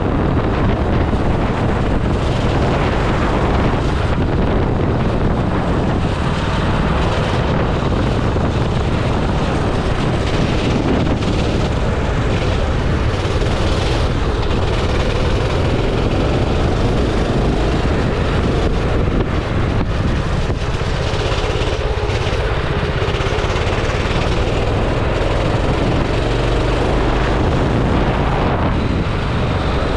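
Go-kart engine running at speed on the track, its pitch rising and falling with the throttle, with wind buffeting the onboard microphone.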